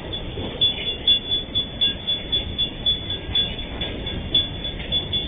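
Freight train of empty flat wagons rolling past, its wheels clacking over the rail joints in a quick, uneven run of knocks over a steady rumble. A thin, steady high-pitched tone sounds above it.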